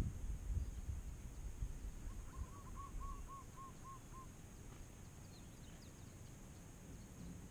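A bird calls a quick series of about eight short hooting notes, about four a second, near the middle, over a low rumble that fades.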